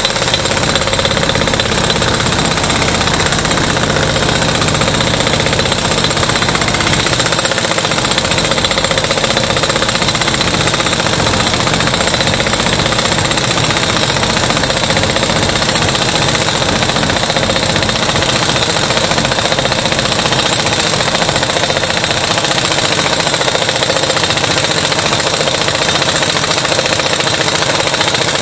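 Pneumatic impact wrench hammering steadily on a gear puller's centre bolt, forcing a heat-treated, seized drive pulley off a lawn tractor transaxle shaft.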